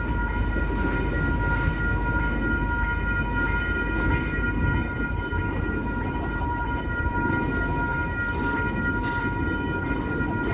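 Freight train of container wagons rolling past with a steady low rumble of wheels on rail. Over it runs a steady high ringing made of several tones, typical of the level-crossing warning bell sounding while the lights flash.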